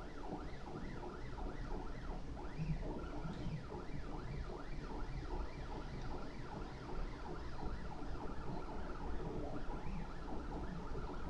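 Prusa i3 RepRap 3D printer's stepper motors whining in quick rising and falling tones as the print head travels back and forth while printing, over a steady low hum.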